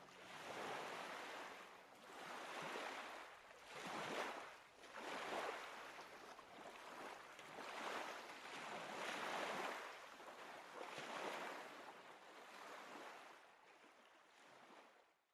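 Waves washing onto a shore in repeated swells of surf, each rising and falling away, fading out at the end.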